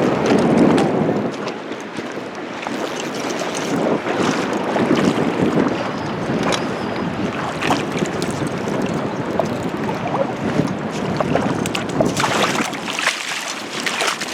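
Steady rush of river water with wind buffeting the microphone, and a few brief sharp sounds in the second half.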